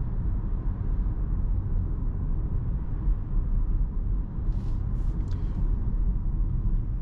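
Steady road and tyre rumble inside the cabin of a rear-wheel-drive Tesla Model Y electric car driving through city traffic, with no engine note. A few faint short clicks come a little after halfway.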